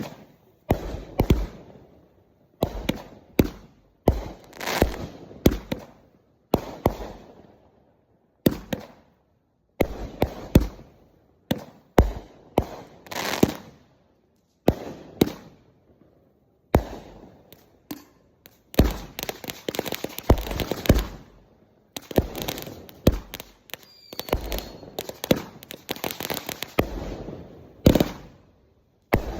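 Consumer fireworks going off in a long series of sharp bangs, each followed by crackling. The crackle is densest and nearly continuous in the second half.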